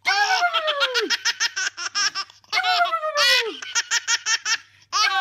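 An eight-month-old baby laughing hard: fast, high-pitched run after run of giggles, each run sliding down in pitch, with brief catches of breath between them.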